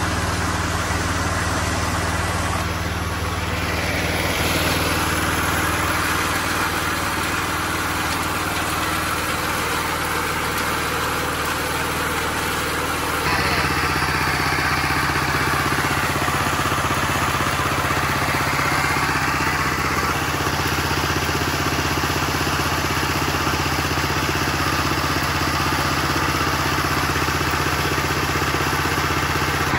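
A home-built horizontal sawmill's engine running steadily. About 13 seconds in the pitch shifts and more hiss comes in, as under changing load.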